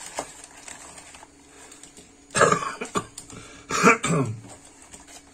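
A man coughing twice, about a second and a half apart, after faint rustling of newspaper wrapping in the first second.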